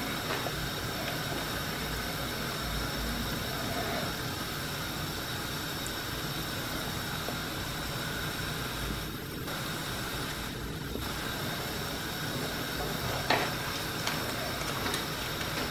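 Crab and kimchi stew simmering in a wok: a steady hiss, with a single light click about 13 seconds in.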